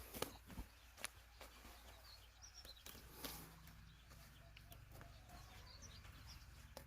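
Quiet outdoor background with faint, scattered bird chirps and a few soft clicks or knocks.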